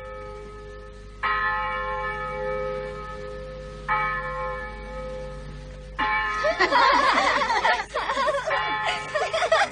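Church bell tolling: two strikes about two and a half seconds apart, each ringing out and slowly dying away. About six seconds in, a crowd of children starts chattering and laughing together.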